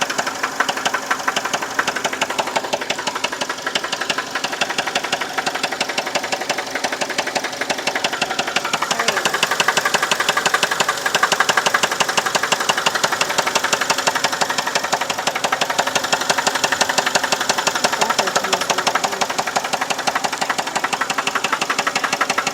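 2011 Chevy Malibu's four-cylinder engine running with a rapid, even knocking that keeps time with the engine and grows a little louder about nine seconds in. The knock appeared after an oil change, and its cause is unknown to the owner.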